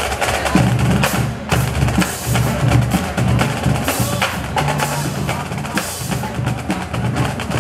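Marching drumline playing a fast cadence on snare drums and bass drums, with dense rapid stick strikes.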